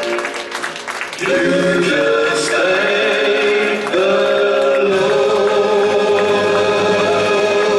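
Music with a choir singing long held notes that change every second or two, with a short dip about a second in.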